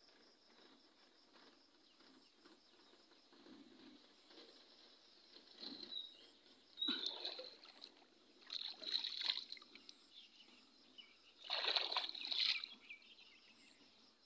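Shallow water splashing and trickling in several short bursts, starting about five seconds in, as a fishing net is lifted and handled in flooded-field water.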